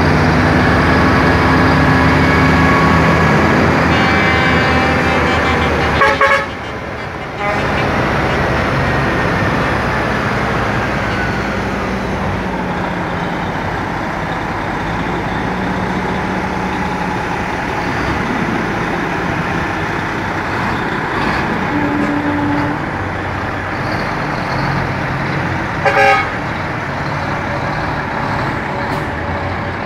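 Heavy diesel trucks, tractor units and a dump truck, driving past one after another with their engines running. Horns sound over the first few seconds, and there are two brief loud blips, one about six seconds in and one near the end.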